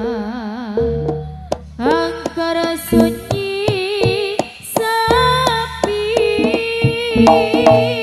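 Traditional Javanese music for a barong dance. A melodic line with wavering vibrato and gliding pitch runs over frequent drum strikes and deep, sustained low tones.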